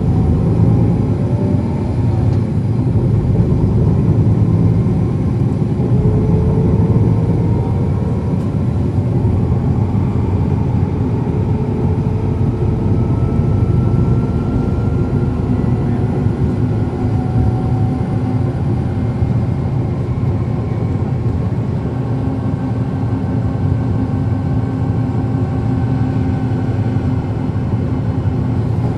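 On-board sound of a 2010 NABI 40-foot transit bus's Cummins ISL9 diesel engine and ZF Ecomat automatic transmission running: a steady low rumble with faint whines that slowly rise and fall in pitch.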